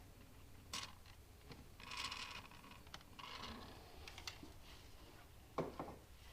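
Faint clicks and scrapes of hand tools and parts being handled at the engine, with a sharper knock near the end and two brief hissing noises about two and three seconds in.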